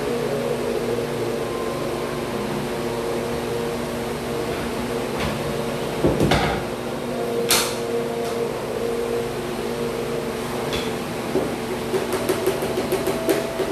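Vinyl floor planks being knocked into place with a hammer: a couple of sharp knocks about six and seven and a half seconds in, then a quick run of light taps near the end, over a steady hum.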